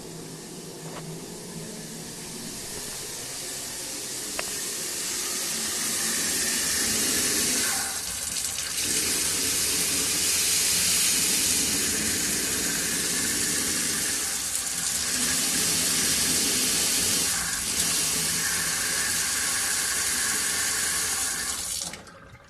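Three-way kitchen mixer tap running water while mixing hot and cold: a steady rush of water with a faint steady whine underneath, the noise this tap makes when mixing. It grows louder over the first few seconds, dips briefly a few times, and cuts off suddenly near the end.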